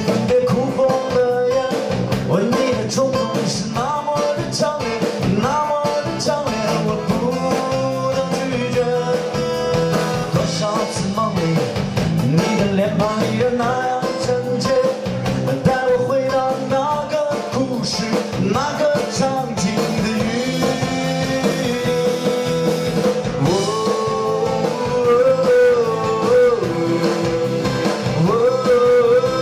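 Live folk band playing an instrumental passage: steel-string acoustic guitars and bass guitar under a piano accordion, with a note held steadily through most of it.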